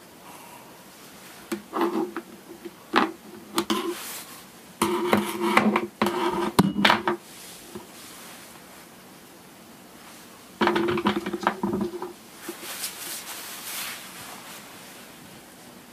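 Small objects being handled and knocked about on a desk, in three short spells of clattering and rubbing, followed by a fainter rustle near the end.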